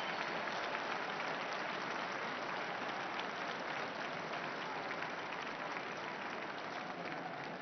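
A large crowd applauding, a dense, even patter of many hands clapping that slowly dies down.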